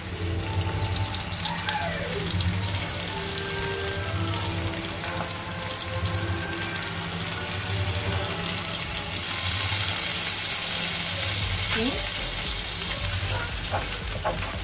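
Pounded chili paste frying in hot oil in a wok, a steady sizzle that grows louder and hissier about nine seconds in as lime juice is squeezed into the pan.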